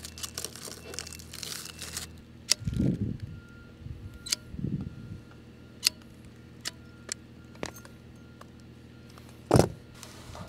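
Sheet-metal valley pan and trim being handled and worked by hand: scattered light clicks and ticks, two low rumbles in the first half, and one heavier knock near the end, over a faint steady low hum.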